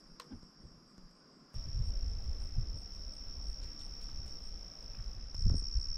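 Crickets trilling in one steady, unbroken high note. About a second and a half in it grows louder and a low rumble joins it.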